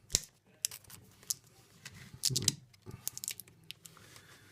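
Small clicks and taps of fingers handling a plastic battery connector and its springs while pressing sellotape down, with a louder knock about two seconds in.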